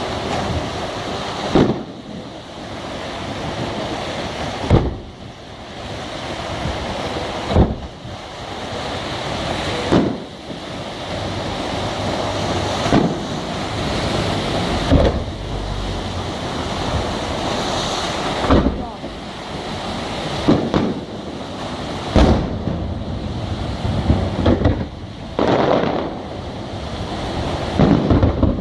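Fireworks display: aerial shells bursting with sharp, echoing bangs about every two to three seconds, some in quick pairs near the end, over a steady rushing noise.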